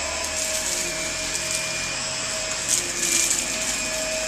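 Dyson ball upright vacuum cleaner running on carpet, its motor giving a steady whine over the suction hiss, with a short louder rush about three seconds in as it is pushed over the pile.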